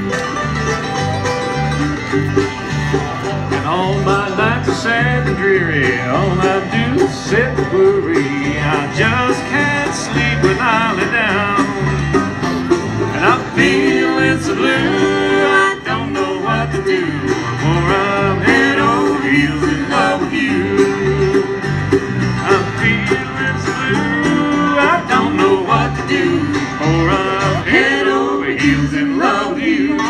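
Bluegrass music with banjo and guitar over a steady alternating bass, and a fiddle line sliding between notes.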